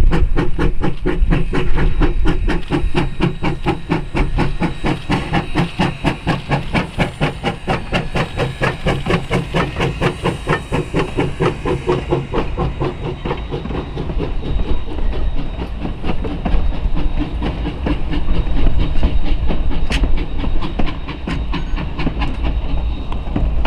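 Steam locomotive No. 152 working, its exhaust chuffing in a steady fast rhythm of several beats a second over hissing steam. After about twelve seconds the chuffing weakens into a steadier hiss and low rumble.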